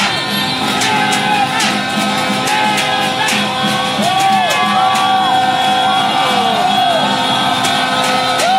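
Celebrating street crowd blowing plastic horns and vuvuzelas, several held tones overlapping and bending up and down in pitch, with shouts, whoops and repeated sharp beats.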